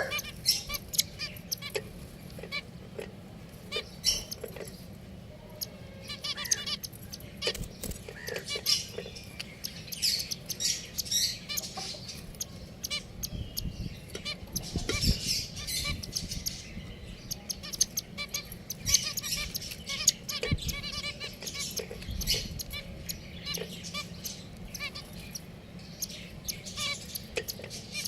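Small pet finches chirping: many short, high calls at an irregular pace, coming from several birds at once.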